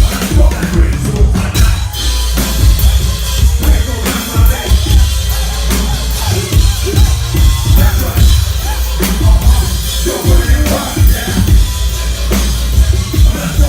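Live electronic hip-hop dance music played loud through a concert sound system, driven by a heavy bass-drum beat and deep bass.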